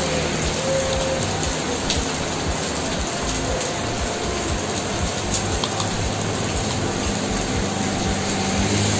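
Heavy rain falling steadily on a wet road and puddles, an even hiss with a low rumble underneath.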